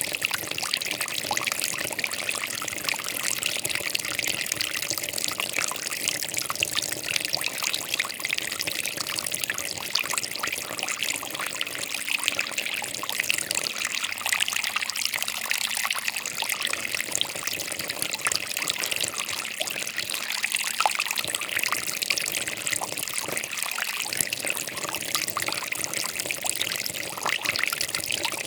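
Water trickling and splashing steadily, a continuous babble of many small splashes with no pauses.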